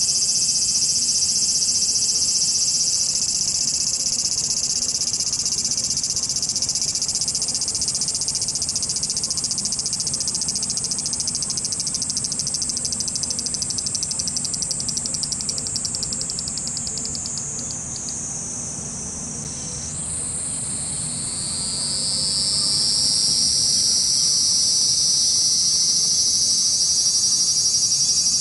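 Cicadas buzzing loudly in a high, dense chorus. Past the middle, the buzz breaks into rapid pulses and slides down in pitch until it drops away. A fresh buzz then starts and climbs back up in pitch.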